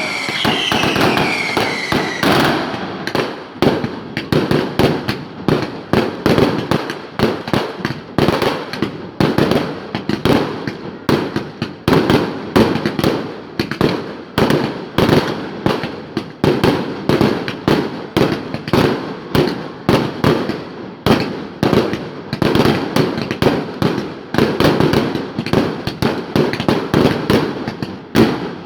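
Fireworks display: a dense, unbroken barrage of bangs and crackling, several reports a second. Falling whistles sound over the first two seconds.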